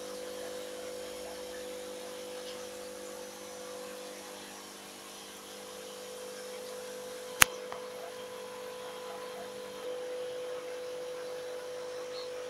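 Steady mains hum of aquarium equipment such as air pumps and filters, with a single sharp click about seven seconds in.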